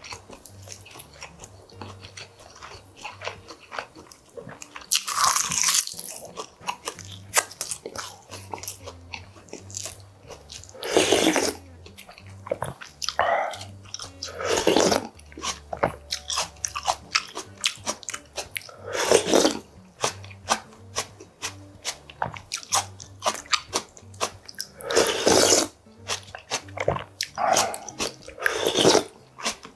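Close-miked eating sounds: steady chewing with crisp, crunchy clicks, broken several times by loud slurps of galbitang (beef short-rib soup) broth from a wooden spoon.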